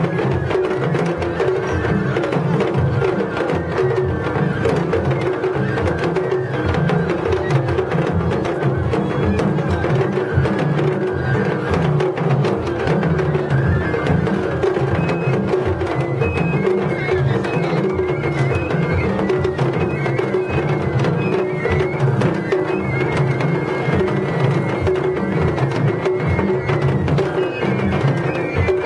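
Japanese festival hayashi played on the floats: taiko drums beating a steady, dense rhythm, with a high bamboo flute line that stands out from about halfway through.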